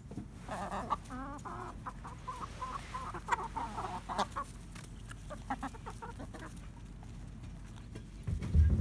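Hens clucking as they peck mealworms off the ground, with a few sharp ticks in the first half. A low thump near the end is the loudest moment.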